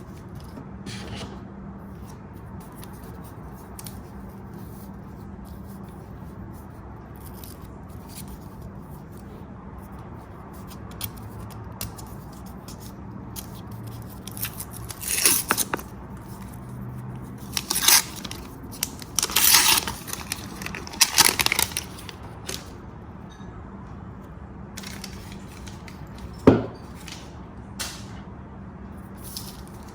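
Hands handling laptop packaging: scattered bursts of rustling and scraping over several seconds midway, then a single sharp knock, as of the box or laptop being set down.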